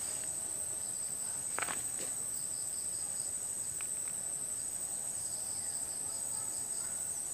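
Steady high-pitched chorus of insects, with one brief click about a second and a half in.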